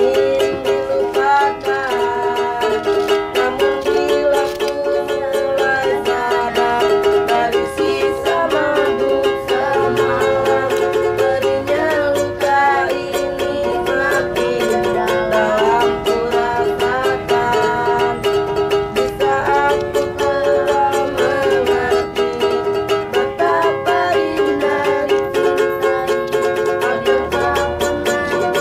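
A man singing while strumming a ukulele in a steady rhythm.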